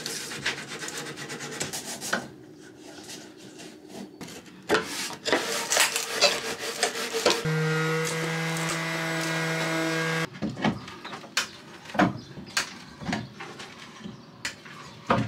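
Carpentry on plywood galley cabinets: rubbing and scraping on wood with scattered knocks and clicks. About halfway through, a power tool's motor runs at a steady pitch for about three seconds, then the knocks and scraping come back.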